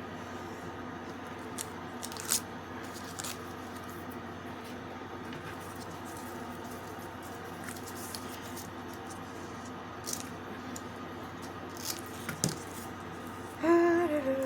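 Scattered light clicks and rustles of handling over a steady room hum. Near the end a woman starts humming a tune.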